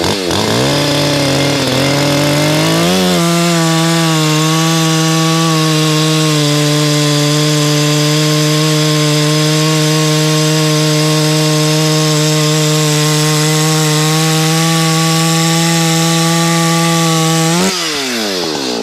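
Two-stroke Echo chainsaw cutting through a large log with an evenly sharpened chain: it rises to full revs about three seconds in and holds a steady pitch under load for about fifteen seconds, then the revs fall away near the end as it comes through the cut.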